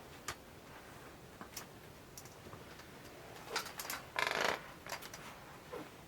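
Scattered small clicks and taps, with a brief louder rustle about four seconds in.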